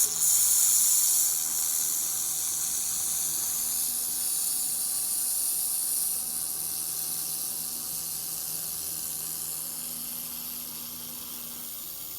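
Maxiwin handheld laser welder running a wire-fed weld bead on 304L stainless steel: a steady hiss with a faint steady whine under it, easing off slightly toward the end.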